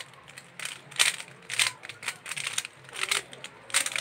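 Plastic 3x3 puzzle cube being turned rapidly by hand: quick clusters of clicking, clacking layer turns, four or so bursts with short pauses between them.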